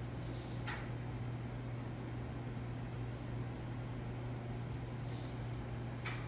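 Steady low background hum with a faint even hiss, broken by a couple of faint soft ticks, one about half a second in and one near the end.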